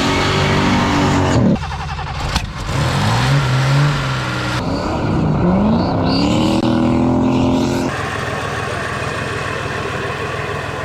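Old cars' engines running and revving, the engine note rising and falling as they accelerate, in several short takes that change abruptly every few seconds.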